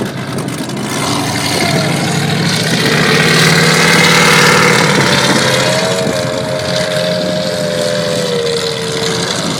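Water-ski racing powerboat engines running across the dock, growing louder to a peak about four seconds in as a boat passes, then fading. A higher engine note from about six seconds in sinks slightly in pitch as a boat pulls away.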